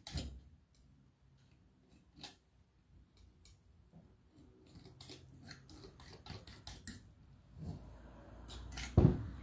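Light clicks and scrapes of handling craft materials on a table. About nine seconds in comes one louder knock as the MDF vase is turned and set down on the table.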